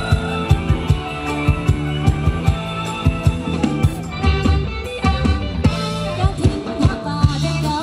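Live band playing Thai ramwong dance music: electronic keyboard over a drum kit keeping a steady quick beat, with the drum pattern changing briefly near the middle.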